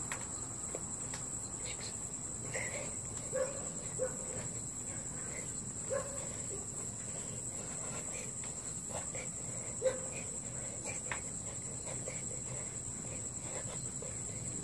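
A cricket trilling steadily in one continuous high note, with a few faint short sounds scattered through it.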